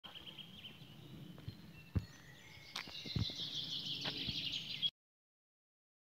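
Woodland birds chirping, with a busier high trilling chorus in the second half, and a few low thumps. The sound cuts off suddenly about five seconds in.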